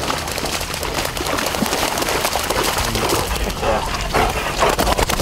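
Splashing, sloshing steps through shallow marsh water and mud.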